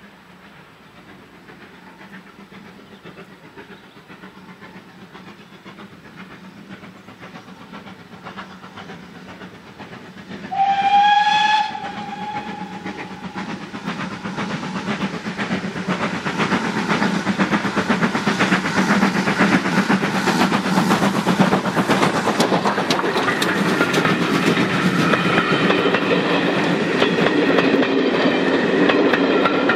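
GWR 2-6-2 tank locomotive No. 9351 approaching at work with a train: its steam exhaust beats grow steadily louder, and its steam whistle sounds once for about a second a third of the way in. Near the end the coaches pass close by with a rhythmic wheel clatter.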